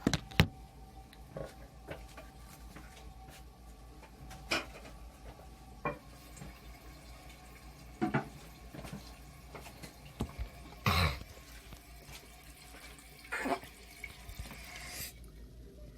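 Faint water in a toilet tank, with scattered light clicks and knocks from handling around the tank and a louder brief scrape about eleven seconds in.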